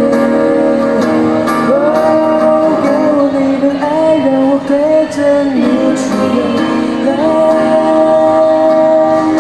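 Song with a voice singing long held notes over guitar accompaniment.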